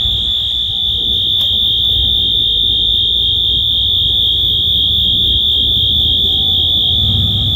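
Gas-station fuel-island flammable vapor alarm horn, a commercial fire alarm that the speaker takes for a Wheelock, sounding one solid, unbroken high-pitched tone over a low rumble.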